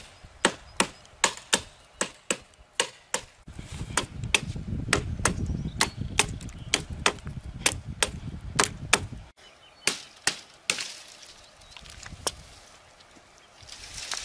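Large fixed-blade knife chopping into a green mesquite branch: a steady run of sharp chops, two to three a second, that stops about nine seconds in. It is followed by softer rustling as the cut branch is handled.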